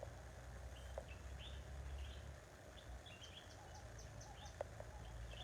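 Birds chirping in short, high calls scattered throughout, faint, over a low steady rumble.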